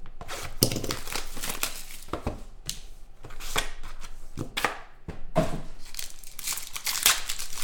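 Plastic wrapping on a pack of football trading cards crinkling and tearing as it is opened by hand, in a run of irregular rustles and rips.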